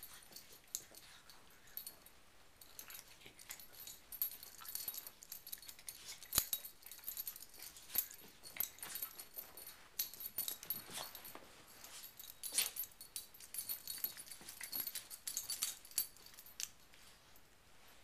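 Two Chihuahua-mix dogs playing, with bouts of high jingling and scuffling in irregular spurts and a sharp click about six seconds in.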